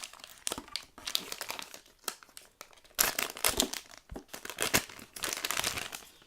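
Plastic toy packaging crinkling and crackling in the hands as it is pulled open, in irregular bursts with some tearing, busiest in the second half.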